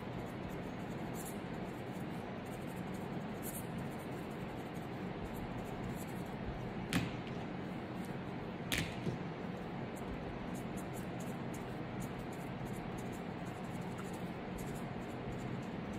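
Felt-tip marker scratching in short strokes on notepad paper over a steady background hiss, with two sharp clicks about seven and nine seconds in as markers are swapped on the desk.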